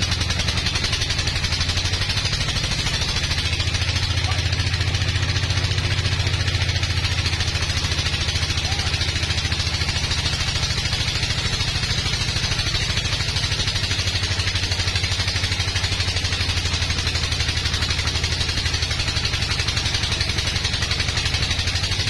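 Band sawmill sawing lengthwise through a large log, running steadily: a low drone from the machine's drive under the higher hiss of the blade in the wood.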